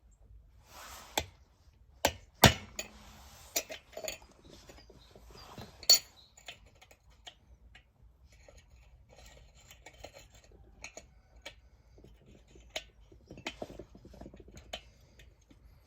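Metal tools and heater parts knocking and clinking as they are handled. Several sharp knocks come in the first six seconds, followed by lighter scattered clinks.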